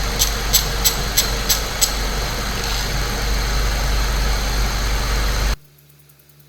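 Saab 9-3 Turbo engine idling while a hand ratchet clicks in a steady rhythm, about three clicks a second, for the first two seconds as the engine cover fasteners are nipped down. A little over five seconds in the sound cuts off suddenly, leaving only a faint low hum.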